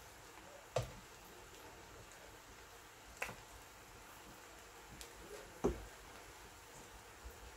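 A metal serving spoon knocks against a frying pan three times, a couple of seconds apart, with the first and last knocks the loudest, over a faint steady background hiss.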